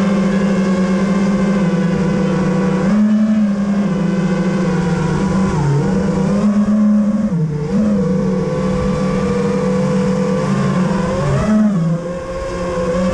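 Five-inch FPV racing quadcopter's brushless motors and three-blade props whining steadily, the pitch dipping and rising in small glides as the throttle changes.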